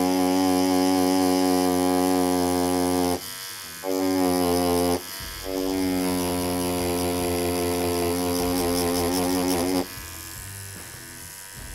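A very loud tattoo machine buzzing with a steady pitched hum as it lays solid black ink into synthetic practice skin. It cuts out briefly about three seconds in and again about five seconds in, then runs on. Its pitch wavers just before it stops, about ten seconds in.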